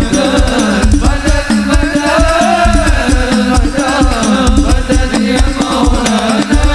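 Islamic sholawat music with heavy, bass-boosted hand-drum beats in a fast, steady rhythm under a winding melodic line.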